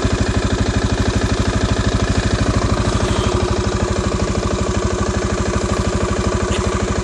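CF Moto 500 4x4 ATV's single-cylinder four-stroke engine idling steadily, with an even pulse of about ten beats a second.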